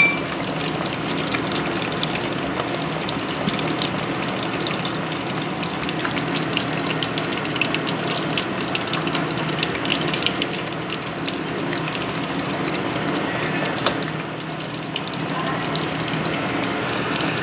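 Pork belly deep-frying in hot oil in a pot: steady sizzling with fine crackling throughout. A brief knock sounds at the very start and another about 14 seconds in.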